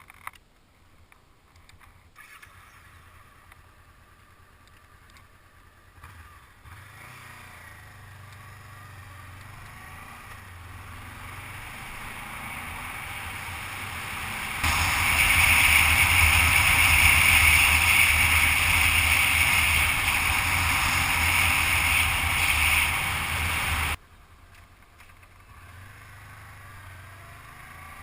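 Honda CB500X motorcycle's parallel-twin engine running on the move, growing steadily louder, then much louder for about nine seconds before dropping away abruptly near the end.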